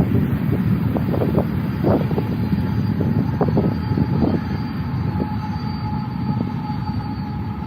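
Off-road vehicle driving on a rough dirt road: a steady low rumble with scattered knocks and rattles and a faint steady whine.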